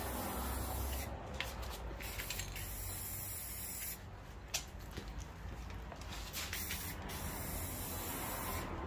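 Aerosol spray-paint can hissing in bursts with short pauses, laying a second coat of yellow paint. A small click comes about halfway through.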